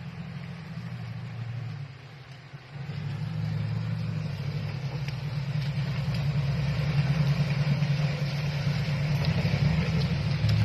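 An engine running with a steady low hum; it drops off about two seconds in, then picks up again and slowly grows louder.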